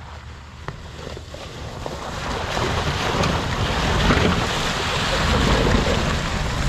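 An 80 series Toyota Land Cruiser driving through a shallow, icy river, its tyres churning and splashing water over the low engine rumble, growing louder as it comes closer.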